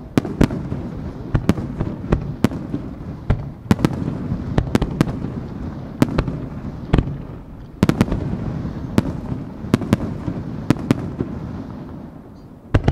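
Aerial firework shells by the Marugo company launching and bursting in quick succession, with sharp bangs roughly one to two a second over a continuous low rumble of echoes. There is a brief lull near the end, then another loud bang.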